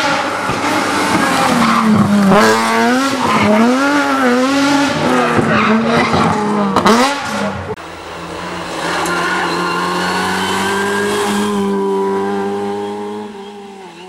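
Rally cars at full speed on a tarmac stage, one after the other. The first revs hard up and down through a bend, with a few sharp cracks about seven seconds in. After a short break, a second holds a steadier, slowly rising engine note that fades near the end.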